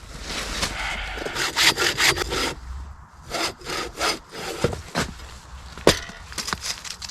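Hand saw cutting through a log, with repeated back-and-forth strokes and a couple of sharp cracks near the end.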